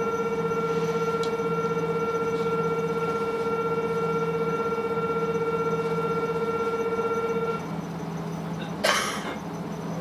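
Station departure bell sounding as one steady electronic buzzing tone that stops about three-quarters of the way through, over the steady low hum of the idling KiHa 185 series diesel railcar. About a second after the bell stops, a short loud hiss sounds as the train doors close.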